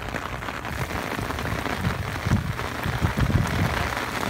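Heavy rain falling steadily, with a few short low bumps.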